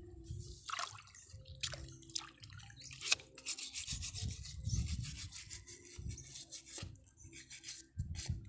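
Irregular scratchy strokes of tuway clam shells being scrubbed, typical of brushing mud off them.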